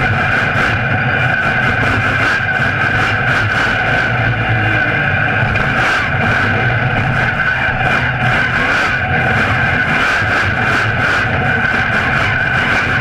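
Monster truck's engine running hard and steady, heard close up from the chassis, with a constant high whine over a low rumble.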